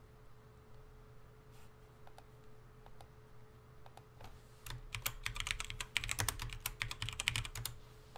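Typing on a computer keyboard: a quick run of keystrokes for about three seconds, starting a little past halfway, after a few faint scattered clicks.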